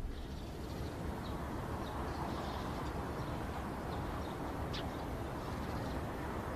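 Outdoor city ambience: a steady low rumble of distant traffic with a few faint bird chirps.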